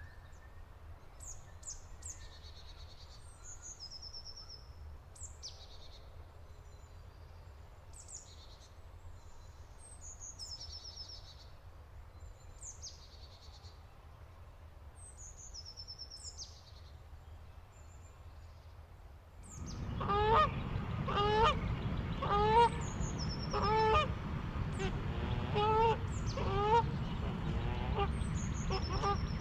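Small birds chirping in short, high-pitched phrases. About two-thirds of the way in, Canada geese start honking, with repeated honks one after another until the end.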